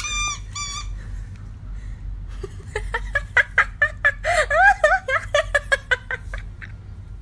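A squeaky dog toy squeaks twice in the first second. From about three seconds in, a person giggles in short bursts.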